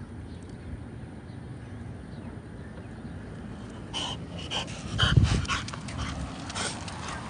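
French bulldog making a quick run of short, high-pitched sounds starting about four seconds in, over steady low background noise, with a loud low rumble about five seconds in.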